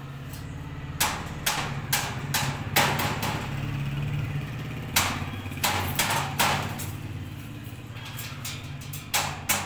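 Sharp knocks in irregular clusters, about a second in, around five seconds in and again near the end, over a steady low hum of a running machine.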